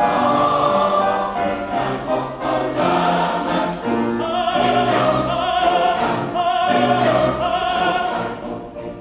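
Mixed choir singing in several parts, with long held notes in the second half and the sound easing off near the end.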